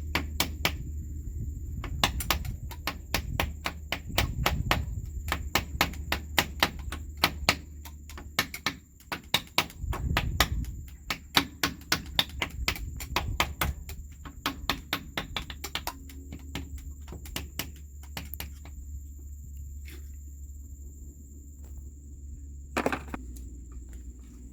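Quick series of sharp hammer taps, a few a second, thinning out to a few scattered strikes after about eighteen seconds, over a steady low hum.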